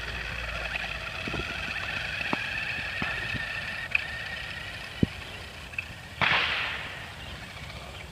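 Electric motor of a remote-control truck whining steadily as it drives, with scattered small clicks and a short burst of rushing noise about six seconds in.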